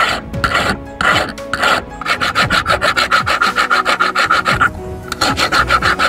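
Flat hand file rasping back and forth across a silver ring: a few slow strokes, then a fast even run of about five or six strokes a second, with a short break near the end before the strokes resume.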